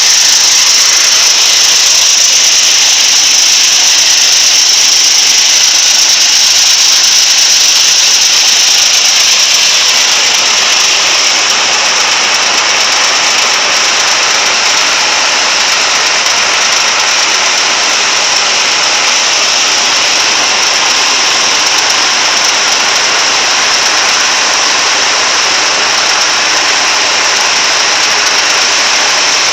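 Engine-driven rice threshing machine running steadily and loudly, with a strong high whine over the engine noise; the sound grows fuller and slightly quieter about a third of the way through.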